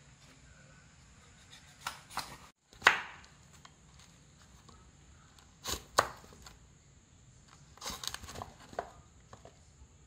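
Kitchen knife chopping through raw pumpkin onto a wooden chopping board: a few sharp chops spread out, the loudest about three seconds in, then a quick run of cuts near the end.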